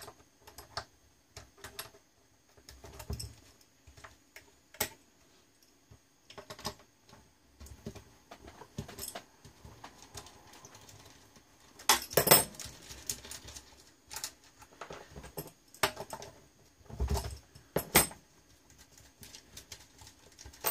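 Scattered clicks, taps and clatter of small metal parts and tools being handled as a bench power supply's front panel is taken apart, with a louder clatter about twelve seconds in and another sharp knock near eighteen seconds.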